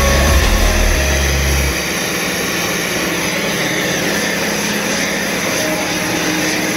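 Gas torch flame burning with a steady hiss. A low hum underneath stops about two seconds in.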